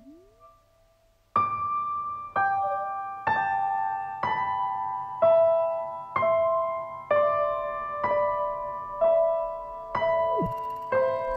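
Slow keyboard music, like a soft piano, with a chord struck about once a second and left to ring out. It starts about a second in, after a quiet opening with a sliding tone, and another sliding tone falls near the end.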